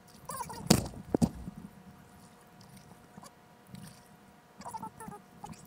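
Two sharp knocks about half a second apart, a kayak paddle striking the kayak's hull.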